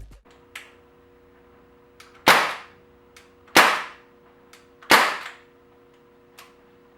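Crosman 1077 CO2 air rifle firing three shots about a second and a quarter apart, each a sharp crack with a short fading tail, with fainter clicks between them.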